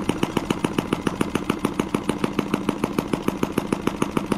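M12B miniature model engine running steadily, each firing stroke a sharp tap in a fast, even beat.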